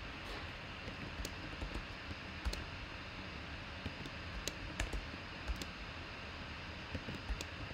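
Computer keyboard being typed on: a handful of sharp, irregular key clicks over a faint steady hiss.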